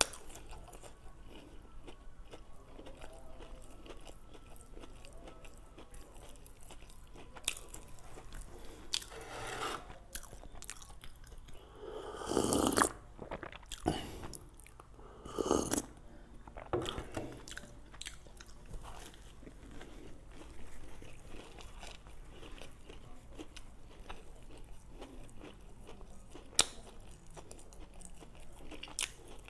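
Homemade donuts being bitten and chewed, with small mouth clicks throughout. A few louder bursts come around the middle and one sharp click near the end.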